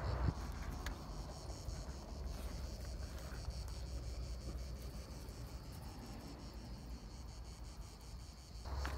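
Steady, high-pitched chirring of insects, with a low rumble underneath.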